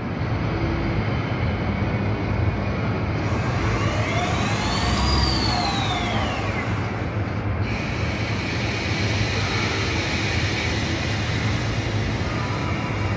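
Kinetic 5000 machine's CAT-50 spindle head running an automatic tool change cycle: steady machine noise with a low hum, and a whine that rises and then falls over about three seconds near the middle.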